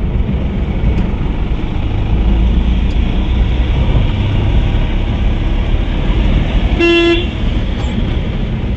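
Engine and road noise of a Mahindra load carrier being driven, heard from inside its cab as a steady low rumble. About seven seconds in, a horn gives one short toot.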